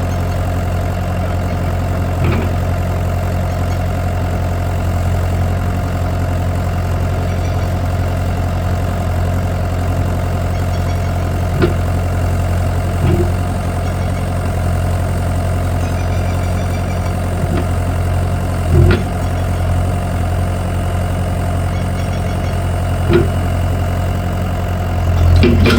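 A motor running steadily with a low hum, broken by a few light knocks and clicks, with a louder pair near the end.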